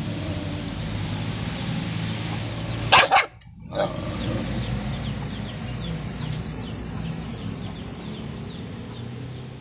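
Caged dog growling low, with two loud barks in quick succession about three seconds in.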